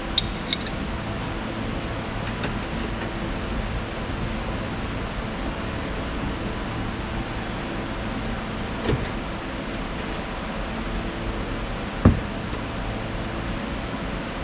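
A steady machine hum with a few metal clinks of a ring spanner on the sway bar link nuts as they are checked for tightness. One sharper knock comes about twelve seconds in.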